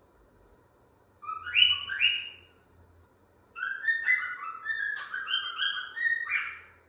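A pet bird whistling in two short phrases of clear, stepping notes, the second phrase longer.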